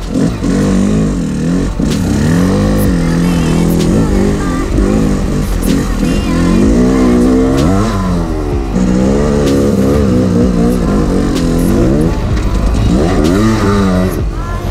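Dirt bike engine ridden hard over rough trail, revving up and falling back again and again as the throttle opens and closes, with scattered knocks from the bumps.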